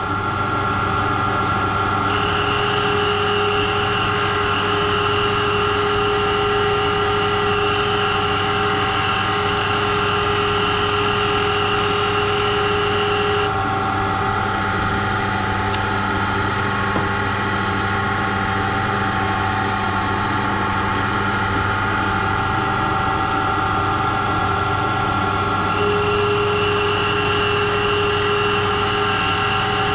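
Comec valve refacing machine running steadily, its grinding stone refacing an exhaust valve. A higher grinding hiss comes in about two seconds in, drops away about halfway through, and returns near the end.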